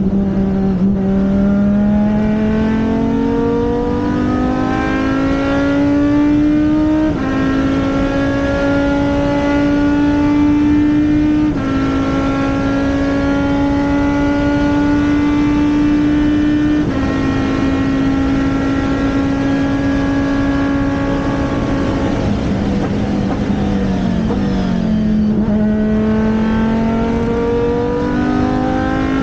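Race car engine running hard. Its note rises early on, then steps down in pitch a few times, then falls and climbs again near the end, like a car going up and down through the gears on track.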